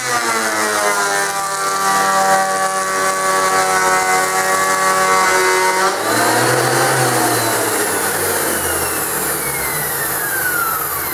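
Metabo DH330 thickness planer running while planing a board, its motor and cutterhead whine sagging slightly under the cut. About six seconds in the sound changes as the machine is switched off, and a whine falls steadily in pitch as it winds down.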